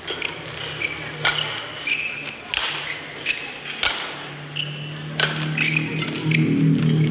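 Badminton rally: rackets smack the feather shuttlecock in sharp cracks, roughly one or two a second, and court shoes squeak on the mat between shots.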